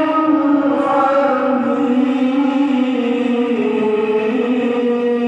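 A singing voice holding one long chant-like note that slowly steps down in pitch with small ornaments, as a vocal exercise.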